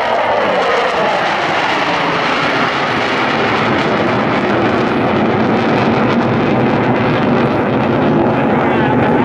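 F-16B fighter jet engine running with a steady, loud jet roar that builds slightly.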